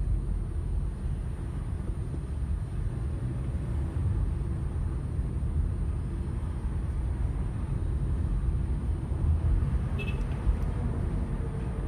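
Steady low rumble of a car's engine and tyres heard from inside the cabin while driving, with a brief high-pitched sound about ten seconds in.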